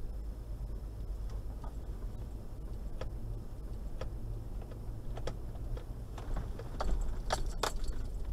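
Toyota Land Cruiser 120 driving slowly, a steady low rumble of engine and road. Scattered clicks and rattles sound over it, with a short cluster of sharper clicks about seven seconds in.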